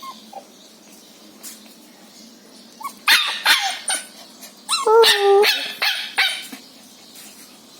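A puppy barking and yipping: a quick run of short high yaps about three seconds in, then a second run about five seconds in that includes a longer, whiny yelp.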